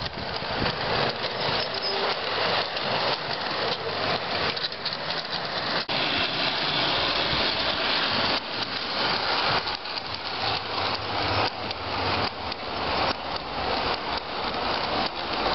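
Large-scale garden-railway model train running on its outdoor track: a steady rush of wheels on rail with quick, irregular clicks, as over rail joints, and a faint low motor hum.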